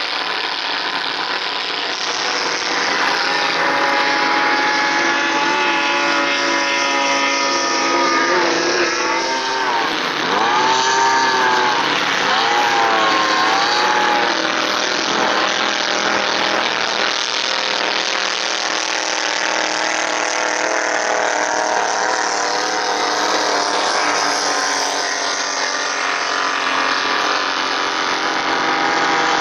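Racing speedboats' outboard engines running hard, their pitch climbing and then dipping and rising several times about ten seconds in as the boats pass and throttle through turns.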